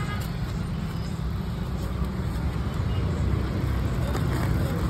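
Steady low rumble of street background noise, chiefly road traffic.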